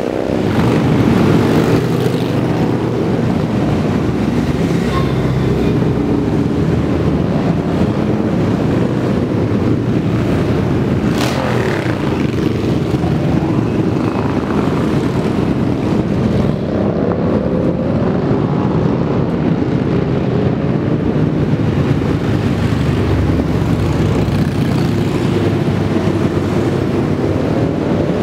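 Many cruiser motorcycles riding past one after another in a steady stream, their engines running. About eleven seconds in, one bike passes close, its pitch dropping as it goes by.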